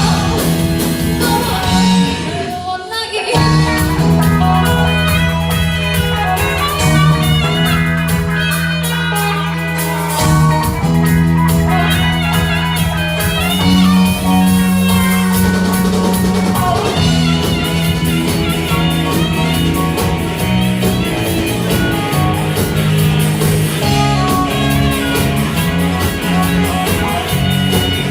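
Live rock band playing an instrumental passage: a lead guitar line with bending, wavering notes over bass and drums, after a brief break in the bass about three seconds in.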